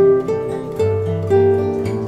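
Instrumental background music: a melody of plucked string notes, a new note every third to half second.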